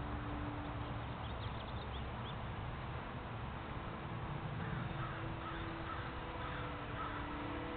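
Wind rumbling on the microphone over a steady hiss, with the faint, steady hum of a small electric RC plane motor and a few bird calls at times.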